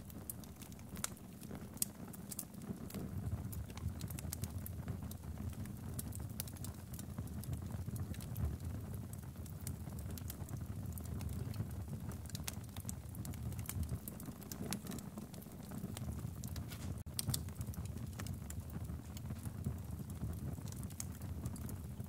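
Wood fire burning in a fireplace, crackling with many scattered sharp pops and snaps over a steady low rumble.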